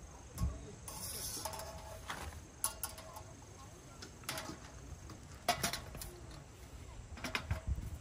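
Scattered knocks and clinks of camping gear being handled during campsite setup, irregular and a second or so apart.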